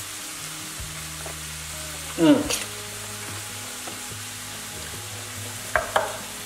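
Meat sizzling in a frying pan over a steady low hum, with a short voice-like sound about two seconds in. Near the end a knife knocks twice on a wooden cutting board as a lime is cut.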